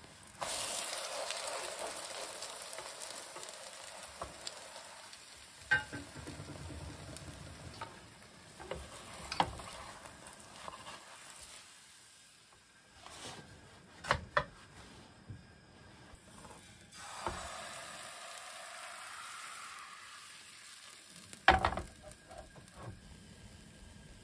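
Pancake batter sizzling in a hot nonstick frying pan, the sizzle swelling up twice, just after the start and again about two-thirds through. Sharp clicks and knocks of a wooden spatula against the pan come in between, the loudest near the end.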